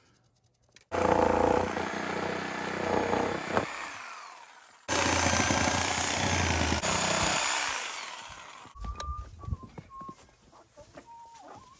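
Reciprocating saw cutting through a rough-cut 2x4, in two steady runs of about four and three seconds that each start abruptly. Near the end, chickens cluck faintly.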